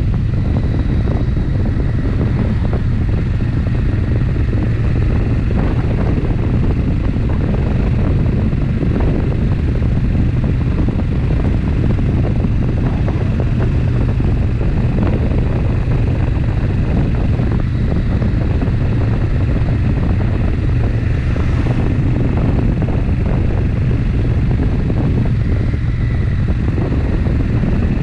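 Suzuki Intruder VS800's 805 cc V-twin engine running steadily while the motorcycle is ridden at an even speed.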